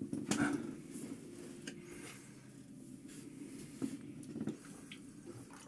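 Electric pottery wheel running with a steady low hum while wet hands rub against a spinning clay cylinder, with a few short scrapes and taps.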